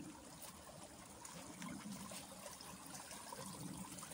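Faint, steady trickle of rainwater running down a flooded footpath.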